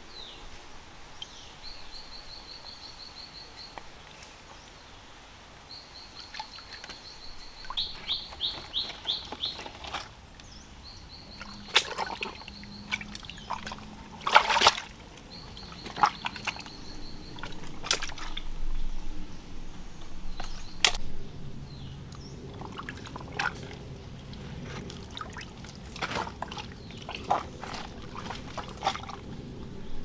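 Water trickling and sloshing in a shallow rocky stream, with scattered splashes and knocks as a person in rubber boots steps through it and handles things. An insect trills in short, high-pitched bursts of rapid pulses during the first half.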